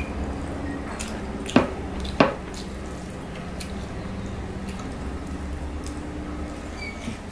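Fingers mixing rice with egg curry on a plate: soft wet squishes, with two sharp clicks about a second and a half and two seconds in, over a low steady hum.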